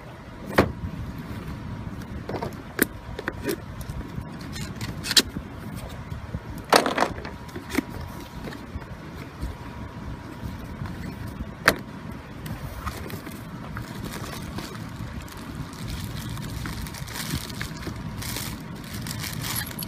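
Cardboard reel box being handled and opened: a handful of sharp taps and knocks, then a plastic parts bag crinkling near the end, over a steady low rumble.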